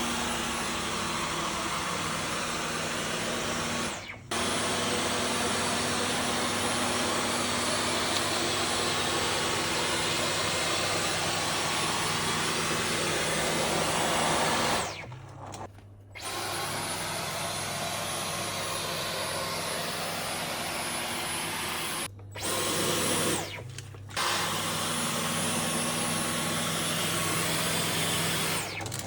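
Dyson V15 Detect Absolute cordless stick vacuum running with a steady, loud whir and hum. It breaks off briefly a few times.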